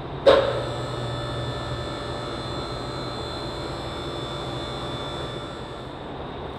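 Two-post car lift's electric hydraulic pump motor switching on sharply and running steadily while raising the truck, a steady whine over a low hum.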